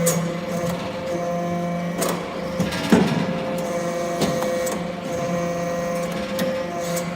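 Hydraulic scrap metal chip baler running: a steady machine hum with several sharp clanks and knocks at irregular moments, the loudest about three seconds in.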